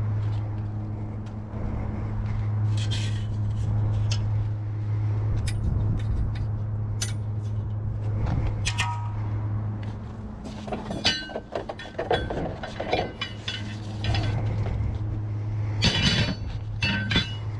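Scrap metal tubing and rods clinking and clattering as they are handled and dropped into a wooden-sided utility trailer, with the busiest clatter in the second half. A steady low hum runs underneath and fades for a few seconds in the middle.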